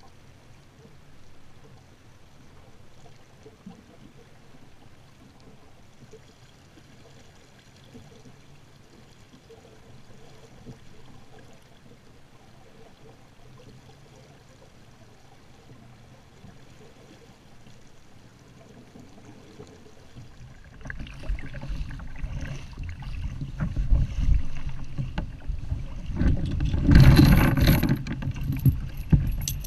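Faint water lapping and splashing beside a kayak on calm sea. About twenty seconds in, this gives way to loud wind on the microphone over choppy water, with the metal chain of a folding grapnel anchor rattling near the end.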